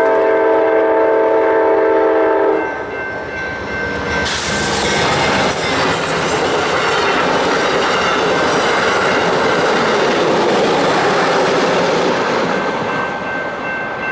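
Amtrak P42DC locomotive horn sounding a blast of about two and a half seconds. The passenger train then passes the grade crossing at speed, its wheels rushing and clacking over the rails for about eight seconds. Through it all the crossing warning bell rings steadily.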